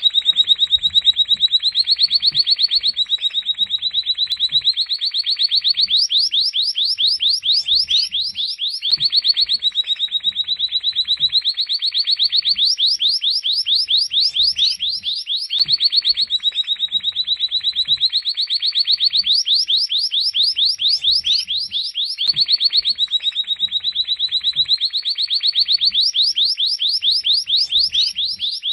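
European goldfinch singing: long, very fast trills of high notes, some held level and some rising in pitch, in phrases that repeat about every six and a half seconds.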